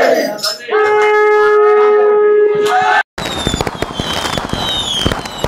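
A conch shell blown in one steady held note for about two seconds, after the crowd's shout dies away. It cuts off, and after a short gap comes a fireworks sound effect: crackling with repeated falling whistles.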